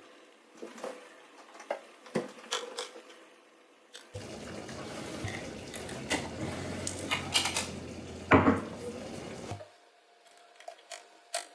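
Kitchen tap running for about five seconds, starting about four seconds in and shut off abruptly. Light clicks and knocks of dishes and utensils come before it, and a sharp knock sounds shortly before the water stops.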